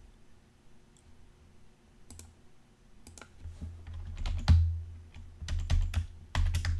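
Typing on a computer keyboard: a few scattered keystrokes, then quick runs of key clicks from about three seconds in.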